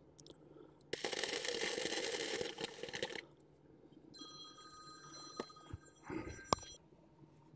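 An electric welder's arc crackles and hisses for about two seconds as a spot weld is laid on steel. After it comes a faint steady high tone, and then a few light metallic clicks, the sharpest about six and a half seconds in.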